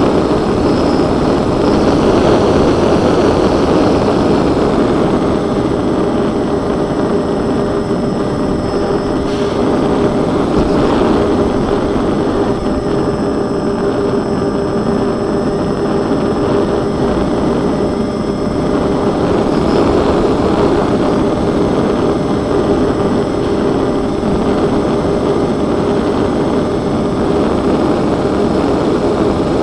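Twin propeller motors of a scratch-built model plane running steadily in flight, heard from the onboard camera as a constant drone with a steady hum under a heavy rush of airflow.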